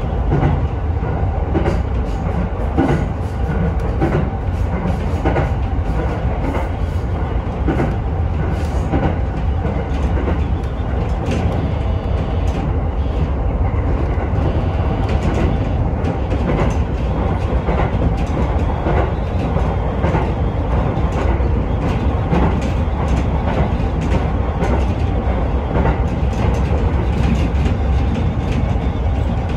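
Sotetsu Izumino Line electric commuter train running at speed, heard from on board: a steady low rumble with irregular clicks from the wheels over the rails and a faint steady tone underneath.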